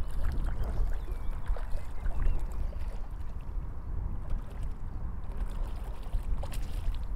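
Small waves lapping and sloshing close to the microphone over a steady low rumble, with a few faint clicks.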